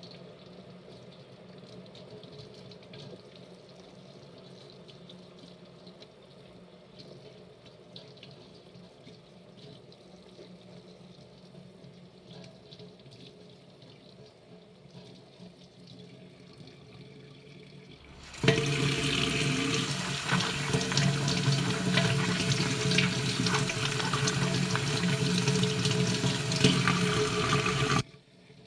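Kitchen tap turned on, with water running hard into the sink for about ten seconds, then shut off abruptly. Before it, only a quiet background.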